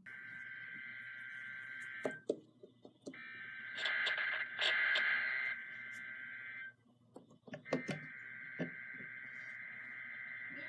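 Emergency Alert System SAME header on a weather-radio broadcast: harsh two-tone digital data bursts sent three times, each about two to three and a half seconds long, with about a second's pause between them. They mark the start of an alert message. A few clicks of static come in the gaps.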